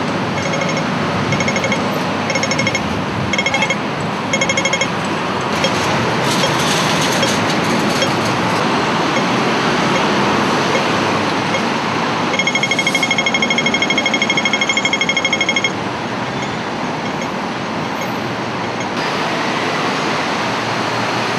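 Pedestrian crossing signal beeping over street traffic. Slow regular beeps in the first few seconds mark the wait phase at the red signal. A rapid run of beeps for about three seconds later on marks the walk phase.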